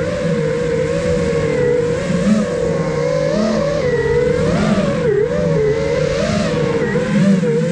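Whine of a 5-inch FPV quadcopter's four motors and propellers (iFlight Nazgul Evoque F5), heard close up from the camera on the drone, its pitch swooping up and down as the pilot works the throttle through turns. Wind rushes across the microphone underneath.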